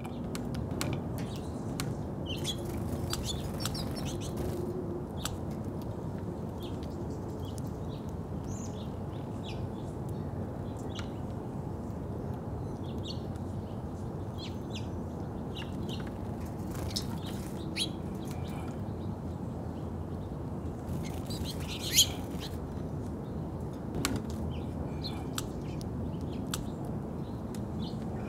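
Small songbirds chirping in short, scattered calls over a steady low background noise, with one louder call about two-thirds of the way through.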